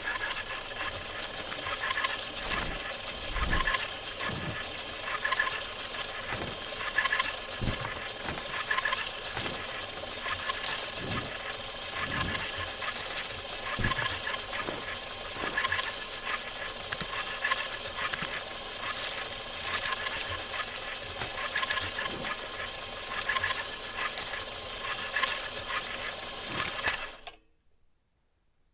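Film projector running: a steady mechanical clatter over a hiss, with occasional low thumps, stopping suddenly near the end.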